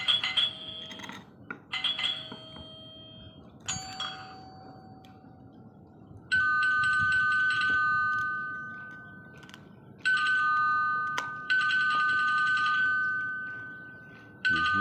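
A sound clip played back for a dog: a few short squeaky tones, then, from about six seconds in, a ringing two-note chime struck four times, each strike dying away slowly.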